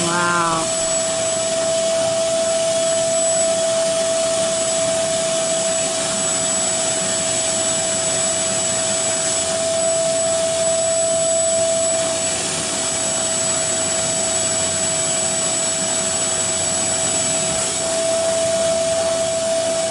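Carpet shampooer running steadily, its motor drawing suction through the hose and hand-tool nozzle held on the wet carpet: a rushing noise with a steady hum over it.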